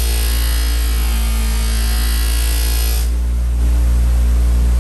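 Bench buffer's motor running with a steady hum while a knife blade is held against the spinning cloth buffing wheel, with the hiss of buffing. About three seconds in the blade comes off the wheel and the hiss stops, leaving the motor running alone.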